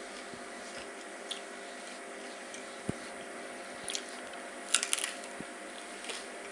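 Biting into and chewing a crispy fried taco, with a few sharp crunches clustered about four to five seconds in, over a steady faint hum.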